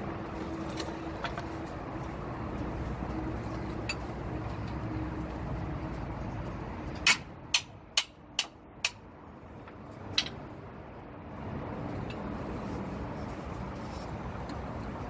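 Steady vehicle noise with a low hum. About halfway through, five sharp metallic clicks about half a second apart, then one more a second later, as a wrench works the transmission drain plug on a cargo truck.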